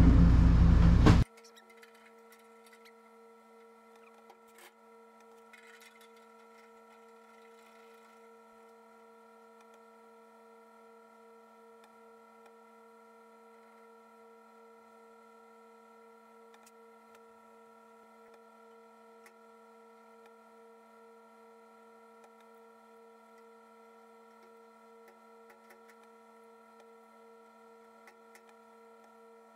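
A loud low noise cuts off abruptly about a second in, leaving a faint steady hum made of several held tones, with a few light clicks over it.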